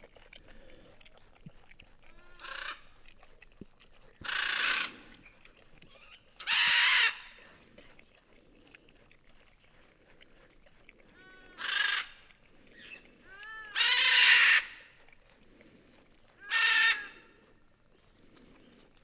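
Parrots screaming: six loud, harsh calls a few seconds apart, with fainter shorter calls between them.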